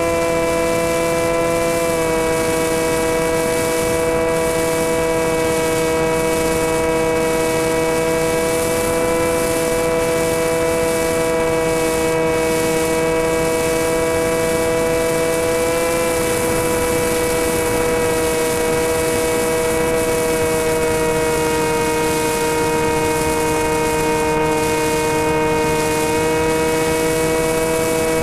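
Motor and new propeller of a radio-controlled flying wing in flight, picked up by its onboard camera: a steady whine of several stacked tones over rushing wind. The pitch dips slightly about two seconds in and again midway through.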